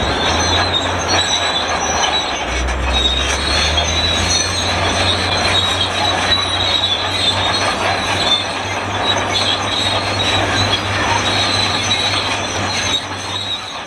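Shantui SD32 crawler bulldozer squealing and creaking loudly and continuously as it works, a metal-on-metal screech like an ungreased cart, over the low hum of its diesel engine.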